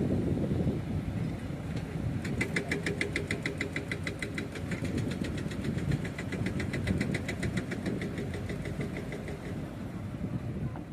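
Heavy diesel engine running steadily. About two seconds in, a rapid, even clatter of about five ticks a second starts over it and fades out near the end.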